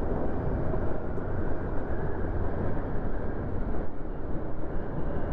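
Motorcycle running steadily at road speed: a low, even engine drone under a constant rush of road and wind noise.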